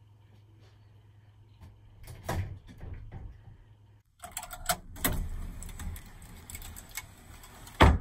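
Irregular knocks and clattering. The sound drops out briefly about four seconds in, and there is a single loud thump near the end.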